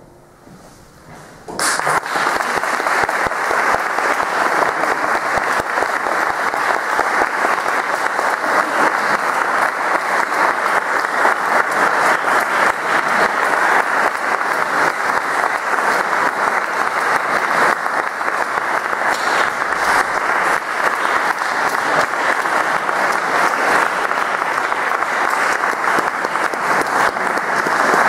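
A brief hush, then audience applause breaks out about a second and a half in and keeps going steadily.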